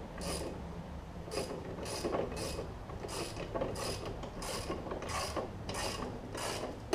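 A 9/16 socket on a ratchet wrench tightening a mower blade nut: the ratchet clicks in short runs, about one every half second, with each back-stroke.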